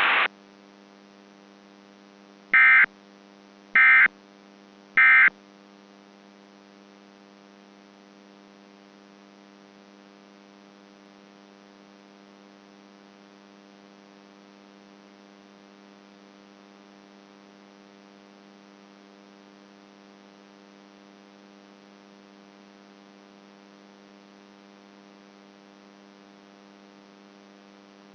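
Three short, identical bursts of Emergency Alert System end-of-message data tones, about a second apart, closing the alert. A steady electrical hum with overtones follows, like dead air on a broadcast feed.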